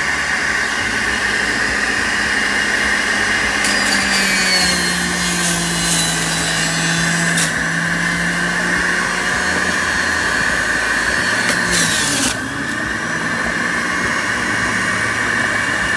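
Electric juicer motor running with a steady whine while juicing celery stalks. Harsher grinding sits on top from about four seconds in, and the sound eases a little about twelve seconds in.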